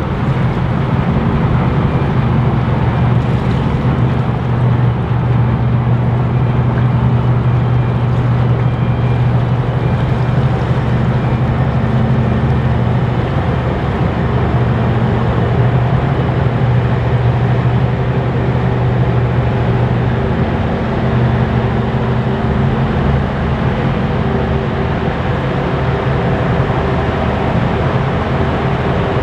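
The ferry MV Bute's machinery running while she lies berthed, a steady deep engine drone with a low hum. The hum eases slightly about twenty seconds in.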